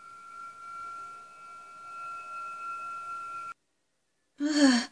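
A steady, pure electronic tone with a fainter higher tone above it, from the audio drama's soundtrack. It cuts off suddenly about three and a half seconds in, and after a moment of silence a short burst of a voice comes in near the end.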